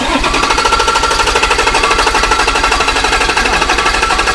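Land Cruiser's swapped-in VX100 diesel engine starts abruptly and runs with a loud, fast, steady clatter.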